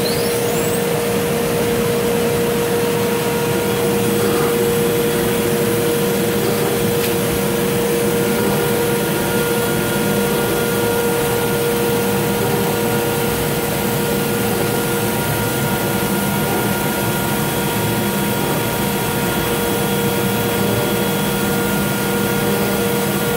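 Limtech Centaurus 510D CNC router at work routing ABS plastic sheet: the spindle gives a steady whine over the constant rush of the dust extraction. A second, higher steady tone joins about a third of the way in.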